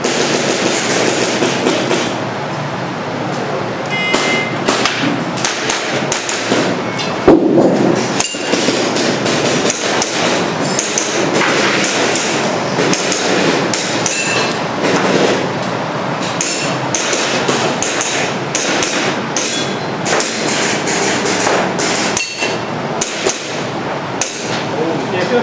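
Airsoft pistol shots cracking in quick, irregular strings, mixed with the knocks and clanks of BBs striking targets.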